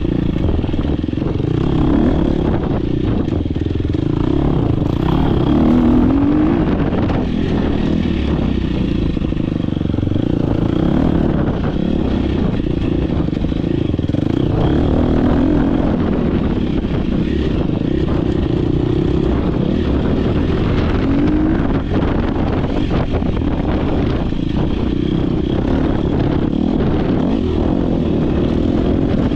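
Dirt bike engine running hard under race load, its pitch climbing as the rider accelerates several times, with knocks and rattles from the bike over rough ground.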